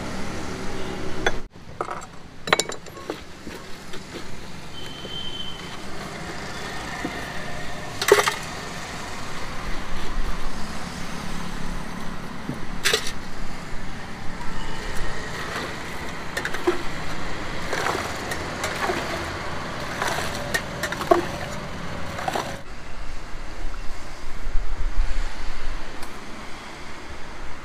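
Street background with road traffic going by, over which steel utensils at a juice stall clink and knock now and then, the sharpest knocks about 8 and 13 seconds in.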